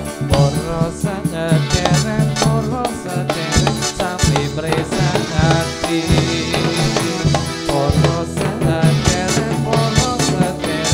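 Dolalak dance music played by a live band: a wavering melody carried over a steady, driving beat of drums and shaken percussion.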